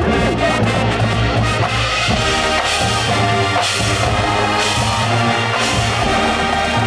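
Marching band playing its field show: brass and percussion over a steady low bass line, with crashes about once a second in the middle.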